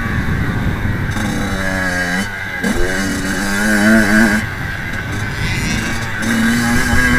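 Kawasaki KX85 two-stroke single-cylinder motocross engine being ridden hard: the throttle opens and shuts in turn, the engine note climbing and falling as it pulls, eases off briefly about two and a half seconds in, pulls again, then picks up once more near six seconds.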